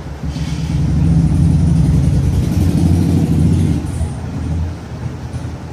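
A motor vehicle's engine running close by, swelling loud about a second in and dying away after about four seconds.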